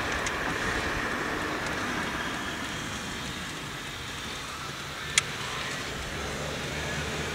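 Steady road and engine noise inside a moving car's cabin, with one sharp click about five seconds in.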